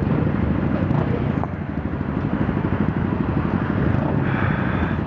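Several motorcycle engines idling together at a standstill, close to the microphone, with a steady, fast pulsing low running note.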